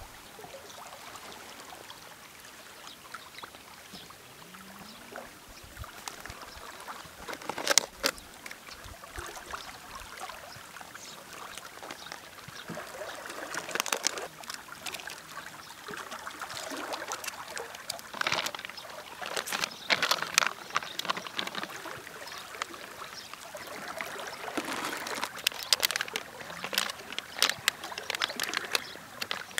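Plastic food packaging crinkling and rustling in a plastic cooler as wrapped and vacuum-sealed packs are handled and lifted out, in quick crackly clicks that come thicker through the second half. One sharp knock about eight seconds in, as the cooler lid is opened. A steady trickle of river water runs underneath.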